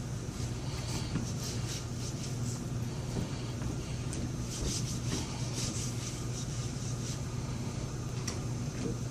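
Room tone: a steady low hum under a constant hiss, with scattered faint rustles and clicks.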